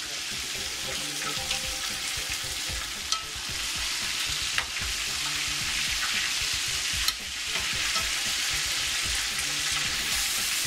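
Battered chicken wings deep-frying in hot oil in a cast-iron skillet: a steady, busy sizzle. Three sharp clicks stand out above it as metal tongs turn the wings.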